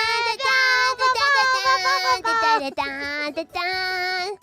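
High-pitched female voices singing a short celebratory tune in held, gliding notes, breaking off abruptly near the end.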